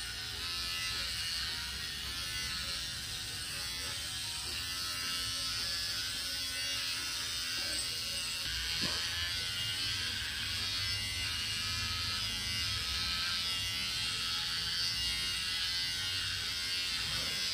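Handheld electric pet trimmer running steadily with a high buzz as it shaves a German Shepherd's coat.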